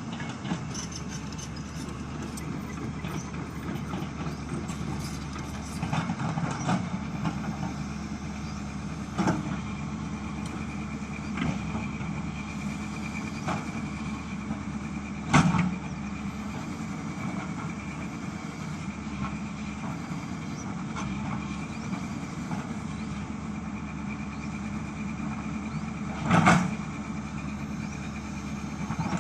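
Hyundai 210 excavator's diesel engine running steadily with a faint high whine over it. Several sharp knocks break through, the loudest about fifteen seconds in and again near the end.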